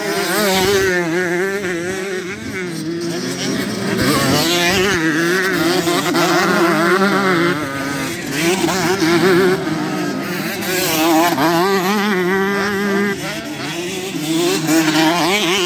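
Several motocross bike engines revving hard, the pitch climbing and dropping again and again as the riders work the throttle.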